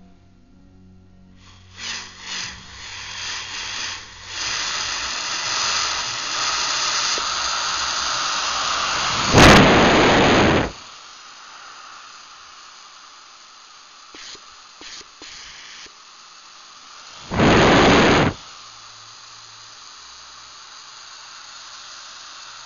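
Compressed air hissing through an electric boost-control pressure valve and its hoses, growing louder over several seconds. It breaks into two loud rushes of venting air, about a second long each, with a few short clicks between them.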